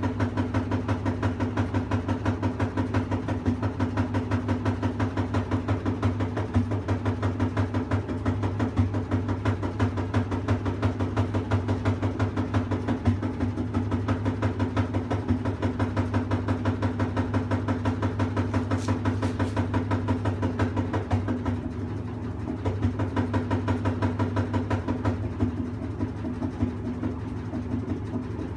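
Washing machine running with a steady hum and a fast, regular pulsing rattle: the machine is making an abnormal noise.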